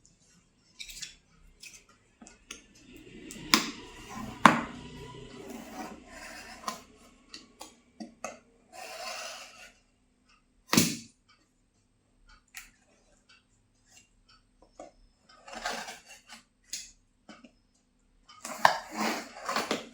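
Cardboard fan box being opened and handled: scattered sharp snaps and knocks, with bursts of rustling packaging in between.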